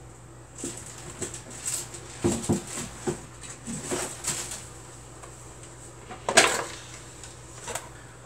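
Objects being moved and knocked about in a search for a container: a string of light knocks and clicks, with one louder knock about six seconds in.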